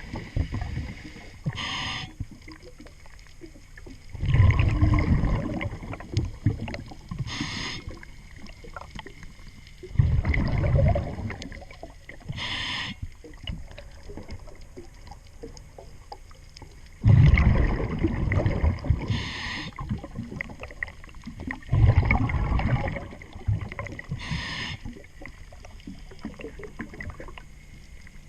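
Scuba diver breathing underwater through a regulator: five slow breaths, each a short hiss on the inhale followed by a loud bubbling rush of exhaled air.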